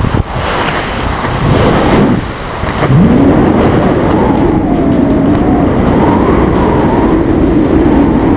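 Wind rushing over the microphone during a tandem skydive. The roar drops suddenly just after the start as the parachute deploys and slows the fall, dips again about two seconds in, then settles into a steady buffeting under the opening canopy, with a wavering tone that rises in about three seconds in and holds.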